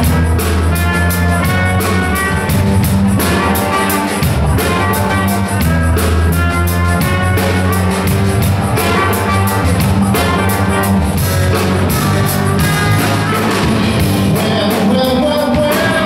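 Live funk band playing: a drum kit with steady cymbal strokes and a strong electric bass line under keys and guitar, with a trumpet playing over the groove.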